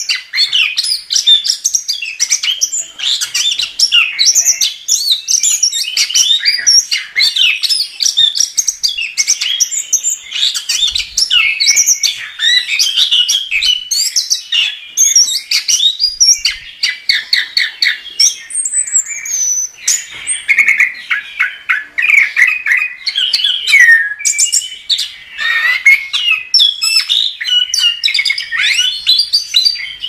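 Chestnut-capped thrush (anis kembang) singing non-stop: a fast, varied stream of chirps, trills and whistled phrases with almost no pauses.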